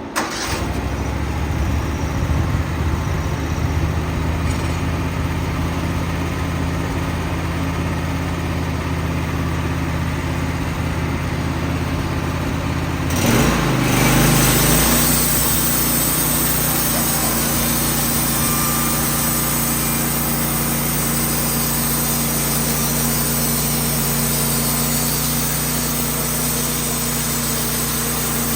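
Wood-Mizer sawmill's engine starting with a sudden jump and running steadily. About thirteen seconds in, its pitch glides as it revs up, and it then runs at a higher steady speed.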